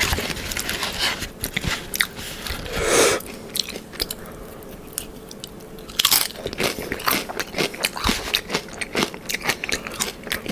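Close-up crunching and chewing of Doritos tortilla chips loaded with chicken, cheese and sauce: crisp crunches at first, a quieter stretch in the middle, then dense crunching again from about six seconds in.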